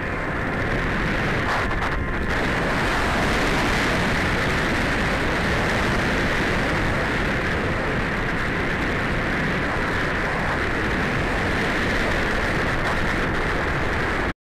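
Electric motor and pusher propeller of a MiniTalon FPV plane running at steady throttle in flight, heard through the onboard camera's microphone with wind noise. The sound cuts off suddenly near the end.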